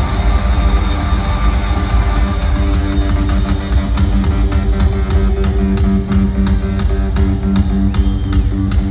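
Live hard rock band playing loudly: electric guitar over bass and drums, with a steady, evenly spaced drum beat that comes in about four seconds in.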